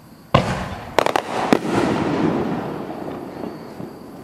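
A 7-inch canister firework shell bursting: a loud boom, then a quick cluster of sharp cracks about a second later and one more shortly after, trailing off in a long rumbling echo that slowly fades.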